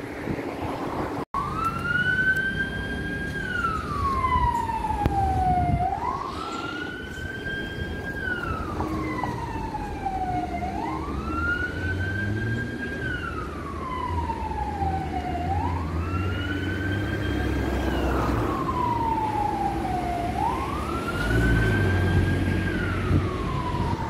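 Fire engine siren wailing over a low rumble. In each cycle the tone rises quickly, holds briefly at the top, then falls slowly, and the cycle repeats about every five seconds.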